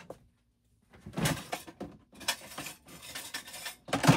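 Irregular handling noise, rustling and clattering of objects being moved about, with a sharp knock about four seconds in.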